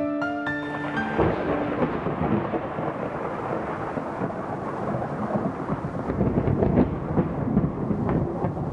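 A few notes of music end about a second in, then a thunderstorm takes over: continuous rumbling thunder with rain.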